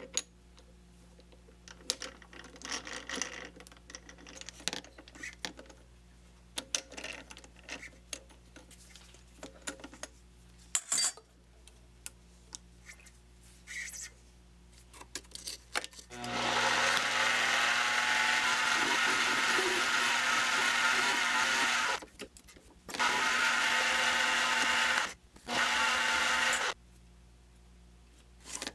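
Light metallic clicks and handling of small steel parts as a screw and coupling nut are set in a lathe chuck. About two-thirds of the way through, the mini metal lathe starts and runs loudly with a steady hum for roughly ten seconds, stopping twice briefly, as the hex head of the steel screw is turned down. It then stops.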